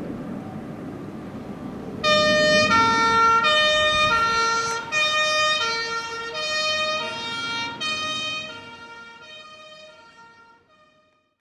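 A fire-brigade vehicle's two-tone siren switches on abruptly about two seconds in, alternating between two pitches about every half second. It fades away over the last few seconds as the vehicle drives off. Before it starts there is the low running noise of the vehicle and traffic.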